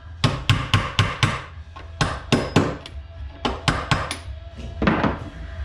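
Hammer striking metal in quick runs of blows, about four a second, with short pauses between the runs and a single harder blow near the end.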